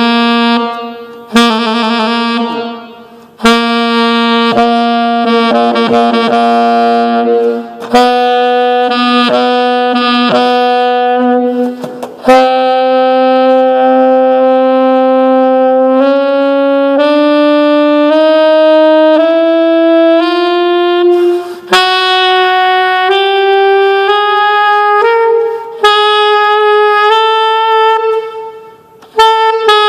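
A 1961 Selmer Mark VI saxophone played solo. Short phrases come with breaths between them, then a slow stepwise climb of long held notes.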